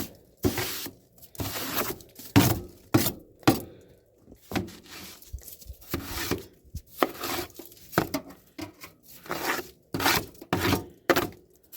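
Snow being brushed and scraped off a barbecue grill: a series of irregular swishes and scrapes, some short and sharp, some longer.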